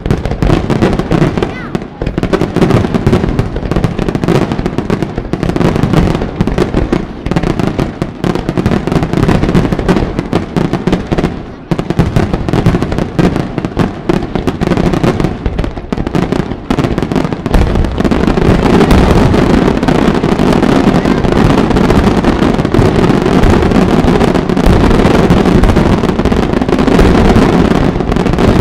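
Aerial firework shells bursting in a rapid, dense barrage, the reports running into one another; about two-thirds of the way through the barrage thickens into an almost continuous, louder volley, as in a display's finale.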